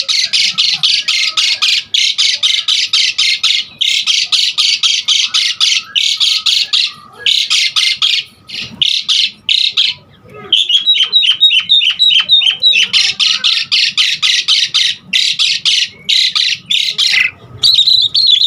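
Javan pied starling (jalak suren) singing: fast runs of scratchy, chattering notes, about ten a second, broken by short pauses. Around the middle comes a run of about seven short falling whistles before the chatter resumes.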